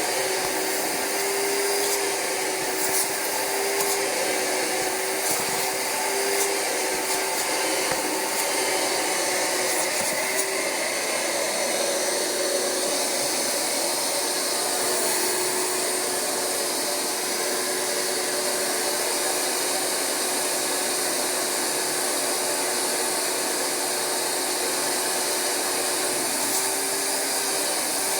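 Rug Doctor carpet cleaner's vacuum motor running continuously as it extracts through the upholstery hand tool. Its hum wavers in pitch for about the first ten seconds, then holds steady.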